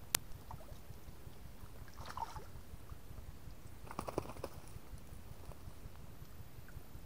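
A wet fishing net being hauled and handled by hand at the water's edge: a sharp click just after the start, a rustle about two seconds in, and a quick cluster of taps and knocks about four seconds in, over a low steady rumble.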